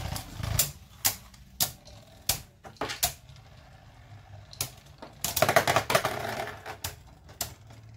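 Two spinning Beyblade Burst tops clashing in a plastic stadium: sharp plastic clacks about once a second, with a denser flurry of hits a little past five seconds in as a red ring is knocked off one top.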